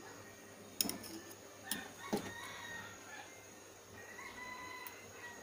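A rooster crowing twice in the background, faint drawn-out calls, with a few sharp knocks from a ladle against the cooking pot in the first half.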